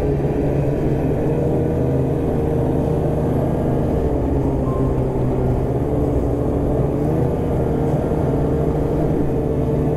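Snowmobile engine and track running steadily at trail cruising speed. The engine note eases down slightly about four seconds in, then picks back up about seven seconds in.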